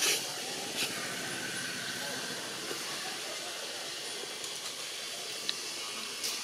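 Steady hissing outdoor forest background with a few short, sharp clicks: one at the start, one about a second in and one near the end.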